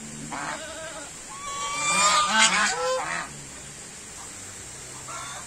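White domestic geese honking: one call about half a second in, then a louder run of overlapping honks in the middle, dying away after about three seconds.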